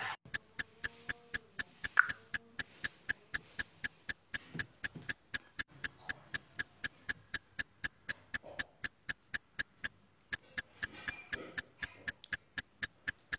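Ticking clock sound effect: an even train of sharp ticks, about four a second, with a short break about ten seconds in.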